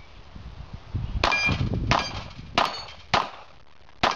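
Glock pistol firing five quick shots at steel targets, starting about a second in. The shots come roughly 0.6 to 0.9 s apart, and each has a metallic ring, typical of a steel plate being hit.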